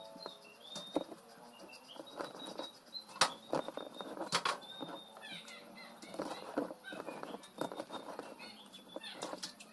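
Pork belly deep-frying in hot oil, with scattered faint pops and crackles at irregular intervals, the sign the meat is cooking through. Faint high chirps sound now and then alongside.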